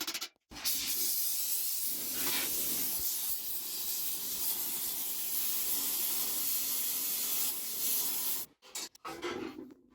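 Steady hiss of a gas flame heating the steel of a helmet being shaped. It starts just after a short cut and stops suddenly about eight and a half seconds in.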